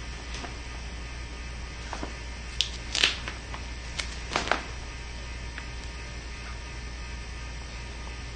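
Short crinkles and rustles of duct tape and poncho fabric being handled by gloved hands, a few bunched together from about two and a half to four and a half seconds in, over a steady low hum.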